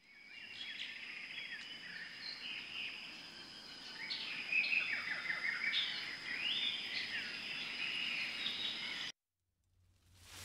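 Outdoor ambience of several birds chirping and calling over a steady high-pitched whine. It fades in at the start and cuts off suddenly near the end.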